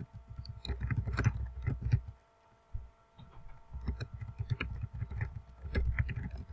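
Computer keyboard typing: a quick run of dull, thudding keystrokes, with a pause of about a second near the middle before the typing resumes.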